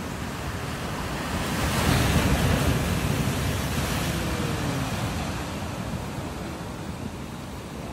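Surf breaking and washing over shoreline rocks, a rushing wash that swells about two seconds in and then slowly ebbs, with some wind on the microphone.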